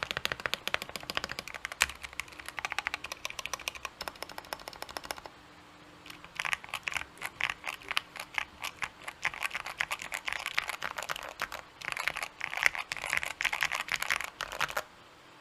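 Fast typing on a custom 60% mechanical keyboard with Gateron Black Ink v2 linear switches on a polycarbonate plate and PE foam mods. The keystrokes run densely for about five seconds, pause for roughly a second, then return in quick bursts with short gaps until they stop near the end.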